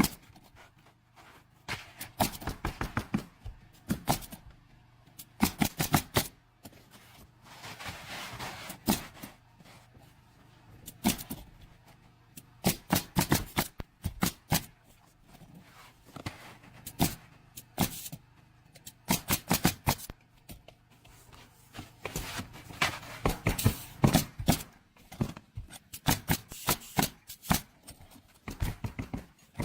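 Bursts of sharp knocks and clicks, several in quick succession each time, with brief scraping between the bursts.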